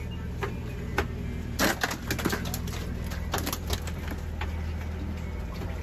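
Scattered light clicks and knocks, several in quick succession about two seconds in and a few more around three and a half seconds, over a steady low hum.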